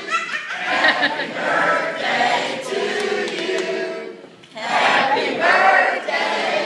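A group of voices singing together, breaking off briefly about four seconds in and then picking up again.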